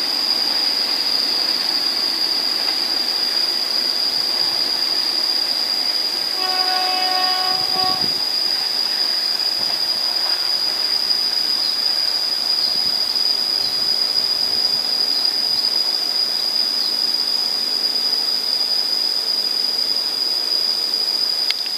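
Passenger train running away around a curve, its locomotive horn sounding once for about a second and a half, about seven seconds in. A steady high-pitched whine runs underneath.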